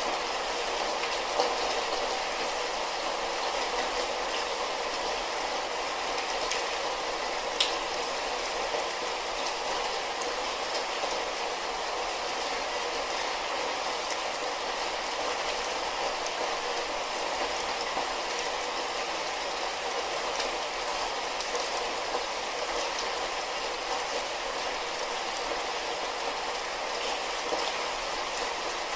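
Light rain falling steadily: an even hiss with scattered drop ticks, one sharper tick about a quarter of the way through.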